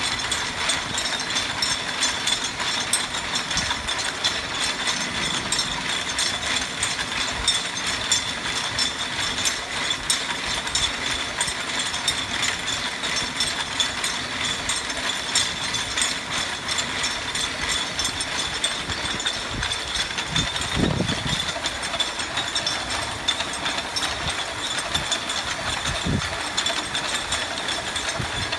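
Nine-spindle braiding machine running, its bobbin carriers circling the track in a steady, fast mechanical clatter as it braids cord.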